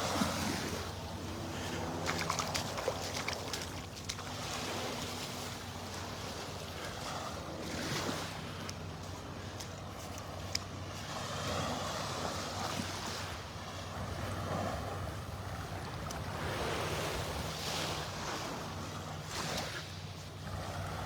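Small Gulf surf washing onto the beach in slow swells, with wind buffeting the microphone and a low steady hum underneath.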